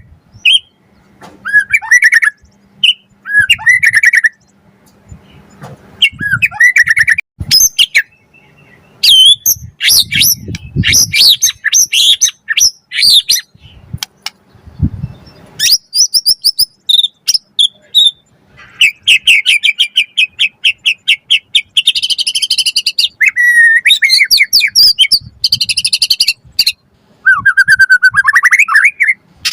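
White-rumped shama singing at full energy: short whistled phrases with pauses between them at first, then from about a third of the way in a near-continuous run of varied phrases with fast trills and rapid chattering notes.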